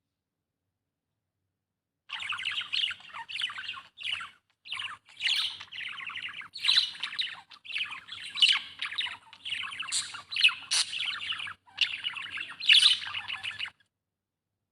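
Budgerigar chirping in a fast, nearly continuous run of short chirps with brief pauses, starting about two seconds in and stopping abruptly shortly before the end.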